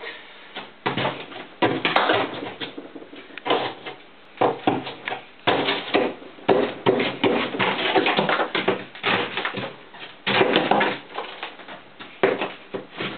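Irregular knocks, clatters and scrapes of a fridge freezer being worked at to free a solid build-up of ice, a dozen or more short hits and rasps at an uneven pace.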